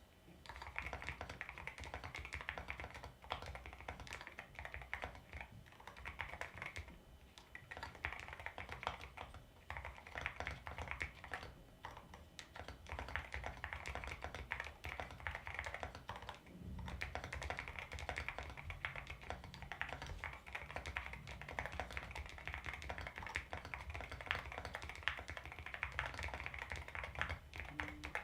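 Typing on an Akko MU02 mechanical keyboard with a walnut wood case and Akko Rosewood switches: a steady patter of keystrokes in runs, with short pauses between them.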